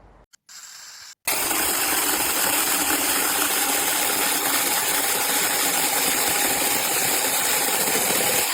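Peektook 6-inch brushless cordless mini chainsaw running: a short quiet burst, then, about a second in, a sudden start into a loud, steady mechanical noise with a constant high whine.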